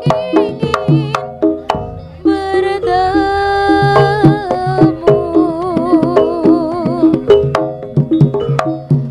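A live jaranan gamelan ensemble playing: a high, wavering melody over held gong-chime notes, punctuated by frequent sharp hand-drum strokes.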